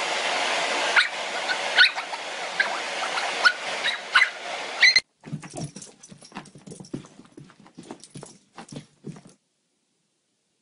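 A small long-haired dog whimpering, about six short high cries over a steady hiss. About five seconds in, the sound cuts to faint scattered taps and knocks, then goes silent.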